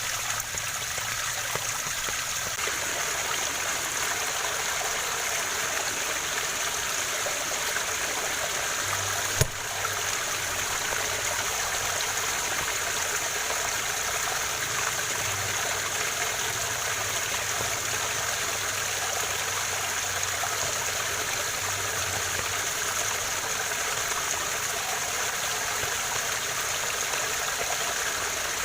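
Waterfall water rushing and splashing steadily. A single sharp click sounds about nine and a half seconds in.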